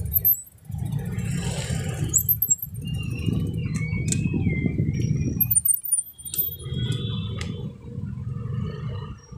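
A bicycle being ridden over pavement: a low rumble of wind on the handlebar microphone and light rattling and jingling from the bike, dropping out briefly a few times, with a short wavering high squeal in the middle.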